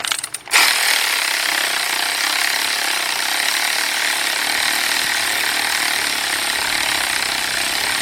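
Cordless impact wrench hammering steadily on an 18mm bolt through a wobble extension, starting about half a second in.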